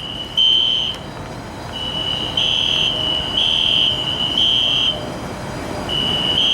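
Fire alarm sounding a high-pitched beep in the temporal-three evacuation pattern: three beeps about a second apart, a pause, then three more, with a fainter steady tone at the same pitch underneath. One beep ends a group about half a second in, a new group runs through the middle, and the next group starts near the end.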